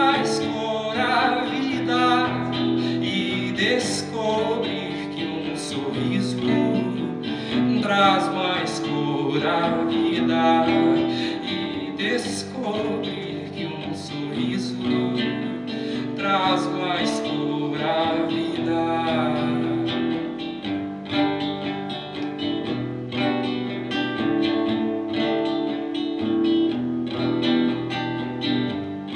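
Live acoustic song: acoustic guitar playing chords with a wavering melody line above it. The melody stops about twenty seconds in, leaving only the guitar.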